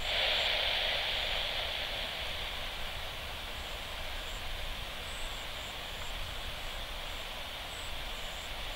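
Steady static hiss from an airband radio receiver between transmissions, starting abruptly and easing off slightly, with no voice on the channel.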